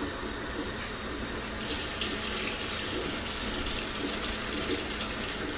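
Water poured steadily from a tumbler into a pan of fried rabbit pieces and broth. The pour grows stronger about one and a half seconds in and keeps going.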